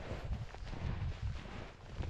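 Footsteps in winter snow while walking, a few uneven thuds, with wind rumbling on the microphone.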